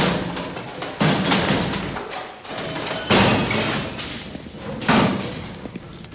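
Three loud crashes about two seconds apart, each fading away with a rattle, as iron hospital beds and ward furnishings are smashed and overturned.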